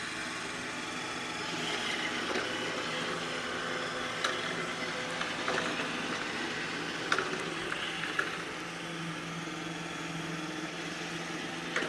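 iRobot Roomba i6+ robot vacuum running on its cleaning job, with a steady motor and brush whir. A few sharp clicks or knocks come through it about four and seven seconds in, and the sound cuts off abruptly at the end.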